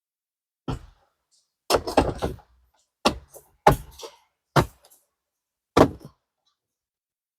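Irregular knocks and clunks of plastic car interior parts being handled and pushed back into place, about six of them, with a quick cluster of knocks about two seconds in.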